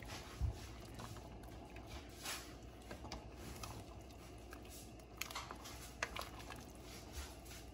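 Faint stirring of broth in a stainless steel stockpot with a plastic ladle: soft swishes of liquid and a few light knocks, over a low steady hum.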